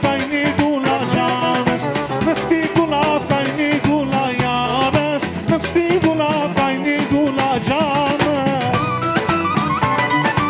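Live band music with a steady, busy drum beat from drum kit and hand drum under an ornamented melody line that bends and wavers in pitch.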